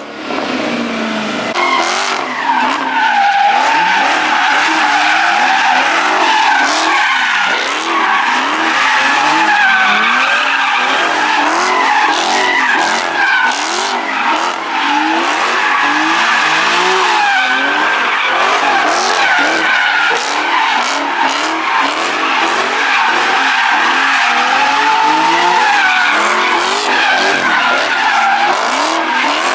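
Car tires squealing in long, continuous skids, wavering in pitch, over engines revved hard again and again, the revs rising and falling every second or so: cars drifting and sliding.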